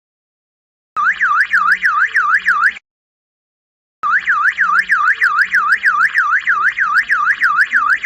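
Anti-theft alarm camera's built-in siren sounding a rapid electronic warble, its pitch sweeping up and down about five times a second. It sounds in two bursts: a short one starting about a second in and stopping near three seconds, then a longer one starting about four seconds in.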